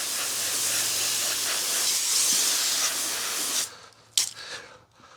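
Water spraying from a hose onto leather hiking boots to rinse them: a steady hiss that cuts off about three and a half seconds in, followed by a brief sharp sound.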